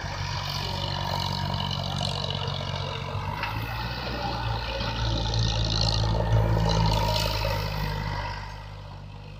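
Tractor diesel engine running steadily as the tractor drives over sandy ground towing a rotavator; the engine note grows louder past the middle and drops back near the end.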